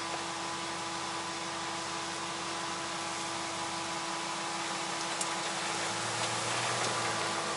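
Dodge Ram 1500 pickup's engine running at low revs as the truck crawls over rough ground, under a steady hiss; a deeper engine hum comes in near the end.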